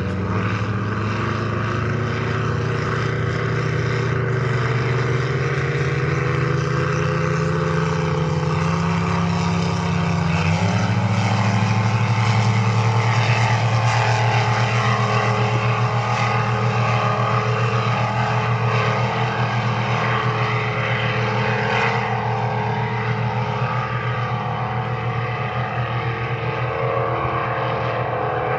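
Racing powerboat engines running hard at speed, a loud steady drone that steps up in pitch about ten seconds in.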